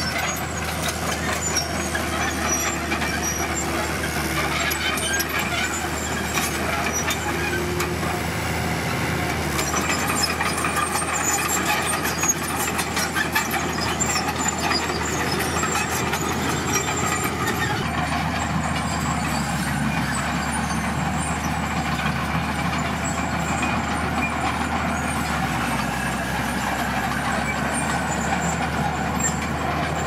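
Komatsu D41PX crawler bulldozer's diesel engine running steadily under load, with the clinking and clatter of its steel tracks as it pushes red gravel.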